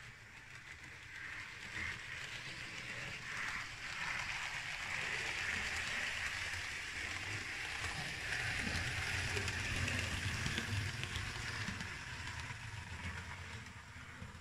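Model diesel multiple unit running along the track, its motor and wheels on the rails; the sound grows louder as the train passes close by in the middle and fades near the end.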